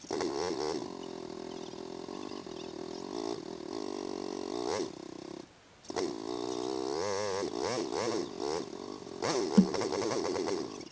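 Off-road engine running and revving, its pitch rising and falling as the throttle is worked, with a brief cut about halfway through and a sharp knock near the end.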